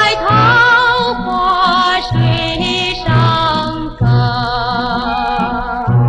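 A 1950s Mandarin pop recording: a woman sings held notes with a wide vibrato over a small band, with a steady bass beat about once a second.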